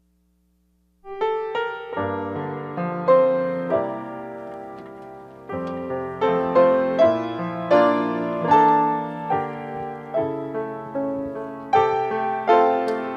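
Piano playing the slow introduction to a hymn: chords and melody notes struck and left to ring and fade, starting about a second in.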